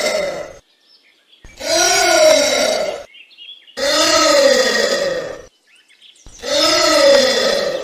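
Anteater calling: a series of drawn-out calls, each about a second and a half long, whose pitch rises and then falls. They come about every two and a half seconds, with three full calls after the tail end of one at the very start.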